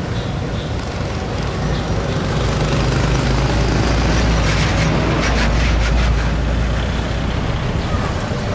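Road traffic passing close by, the loudest an Isuzu dump truck driving past about halfway through: a low diesel engine rumble that swells and then fades, with some brief noisy clatter as it goes by.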